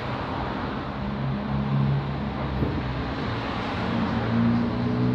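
Steady rumbling noise with a low droning hum that shifts pitch now and then, like engine or traffic noise.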